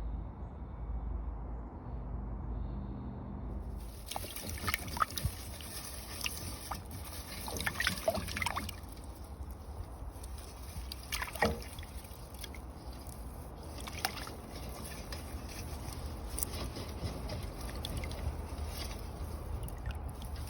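Water trickling and splashing, starting about four seconds in after a low hum, with a few louder splashes and gurgles.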